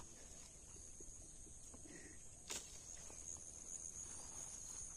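Faint, steady high-pitched chirring of insects, with a single sharp click about two and a half seconds in.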